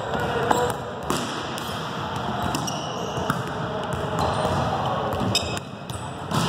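A basketball bouncing now and then on a hardwood gym floor, with sneakers stepping and shuffling, over steady background noise in a large gym.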